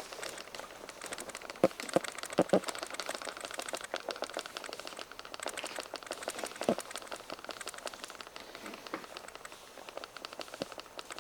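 A dense, continuous patter of small crackles and clicks, with a handful of louder sharp clicks, four of them in the first seven seconds.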